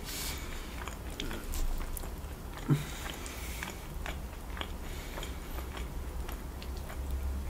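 Chewing and biting into sauce-covered rotisserie chicken: a steady run of small irregular clicks and smacks from the mouth.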